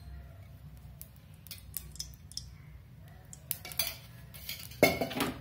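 A spoon clinking and tapping lightly against a non-stick kadai as cooking oil is added to the hot pan, with a louder clatter near the end.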